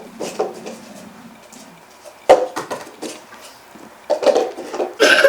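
Objects being handled on a hard surface, with one sharp knock about two seconds in and more clattering near the end.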